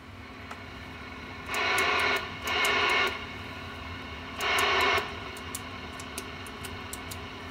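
Three short bursts of loud radio static with a buzzy edge, about half a second each, coming about a second and a half, two and a half and four and a half seconds in, over a steady low hum from the bench gear and a faint quick ticking.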